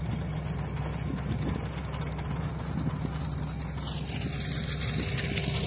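A vehicle engine running steadily with a low hum, over a background of rushing noise.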